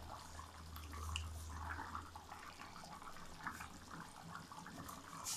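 Beef trotter (paya) broth boiling in an open wok: irregular small bubbling pops. A low hum fades out over the first two seconds.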